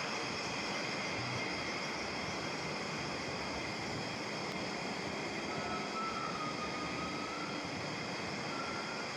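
Steady machine noise with a constant high hum, and a faint thin whine that comes in about halfway through and again near the end.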